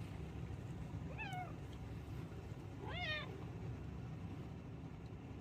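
Domestic cat meowing twice, two short calls that rise and then fall in pitch, the second a little louder, over a steady low hum.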